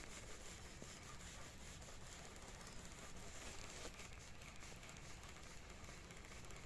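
Faint, steady outdoor background hiss with light rustling and a few small crackles.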